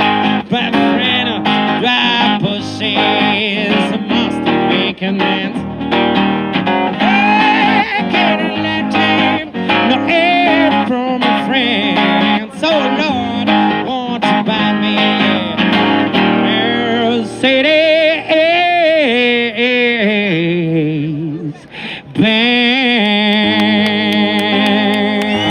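A man singing to a strummed acoustic guitar, the close of a song. From about two-thirds of the way in, he holds long notes that waver in pitch over the strumming.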